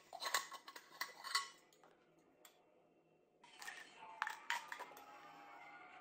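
Metal clinks and clicks of a stainless steel bottle and its screw lid being handled and unscrewed, a quick cluster in the first second and a half. From about three and a half seconds in, a fainter steadier sound with a few more clicks.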